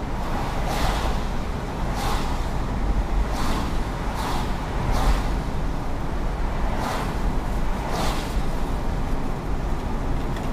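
Car driving on a wet street, heard from inside the cabin: a steady low road rumble with brief hissing swishes every second or two.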